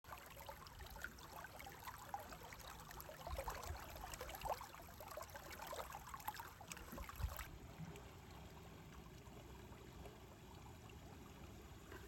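Faint trickling and babbling of shallow stream water, which drops suddenly to a quieter, even hiss about seven and a half seconds in.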